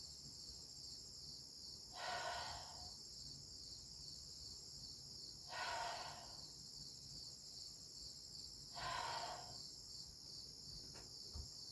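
Crickets trilling steadily in a high, pulsing chorus. Three louder breaths out come about every three and a half seconds, and there is a faint click near the end.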